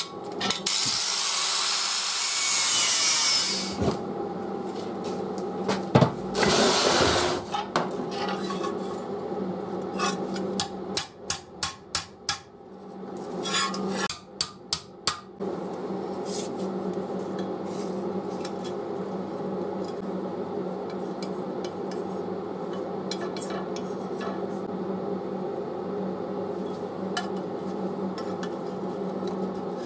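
Angle grinder grinding steel in two short bursts, then two runs of quick hammer blows on a steel plate over an anvil block. After that, lighter scraping and rubbing on the metal over a steady hum.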